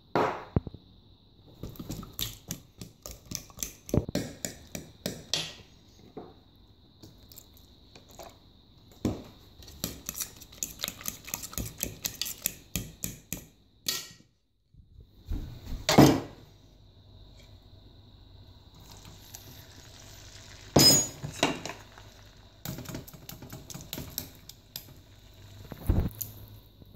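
A metal fork mashing and whisking banana and egg into pancake batter in a plastic mixing bowl, with quick runs of clicks and taps against the bowl and a few louder knocks.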